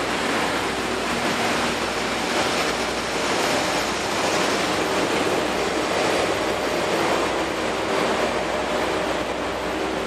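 Freight train hauled by an EF210 electric locomotive running by: a steady rush of wheel-on-rail noise with a few faint held tones.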